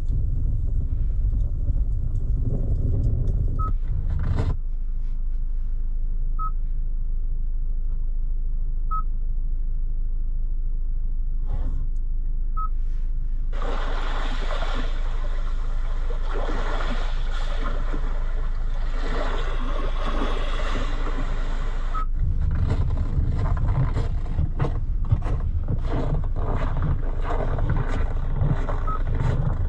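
A Kia Sorento with a 2.2 CRDi diesel being driven: a steady low engine and road rumble that drops away about four seconds in. From about a third of the way through to about three quarters, a wide rushing hiss takes over. Then the low rumble comes back, with scattered clicks and knocks.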